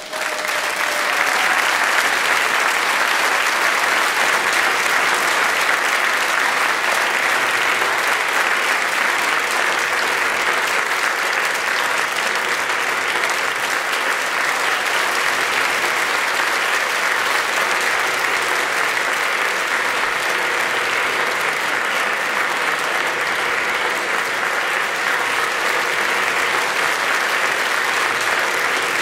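Large audience applauding steadily throughout, as sustained welcoming applause that swells up in the first second and holds.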